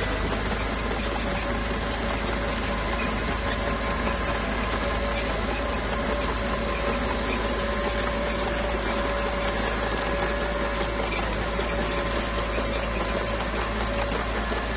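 Small bulldozer's diesel engine running steadily, with a constant hum and no change in pitch.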